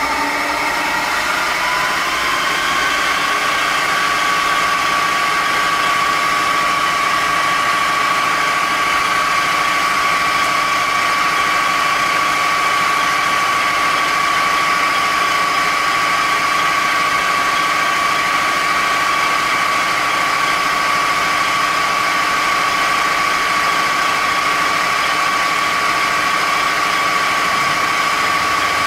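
Millport vertical knee mill's variable-speed spindle running. Its whine rises in pitch over the first couple of seconds as it speeds up, then holds steady.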